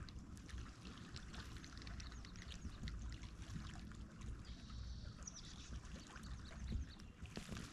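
Water lapping and trickling against a kayak's plastic hull, with faint small clicks and ticks.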